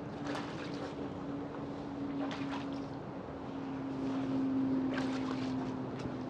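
A steady low mechanical hum that drifts slightly in pitch, like a distant motor. Over it come a few brief clicks and rustles of handling.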